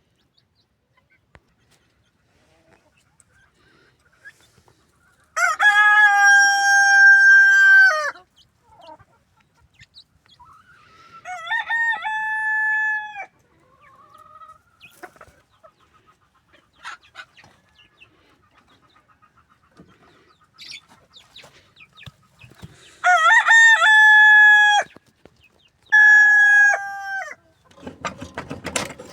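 Local-breed (baladi) roosters crowing four times, each crow a long held call of a second or two, with soft clucking between. A scratchy noise starts near the end.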